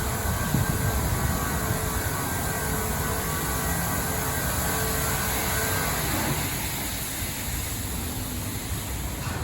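PDQ LaserWash 4000 touchless car wash running: a steady hiss of spraying water over machine noise, with a faint motor whine that fades about six seconds in.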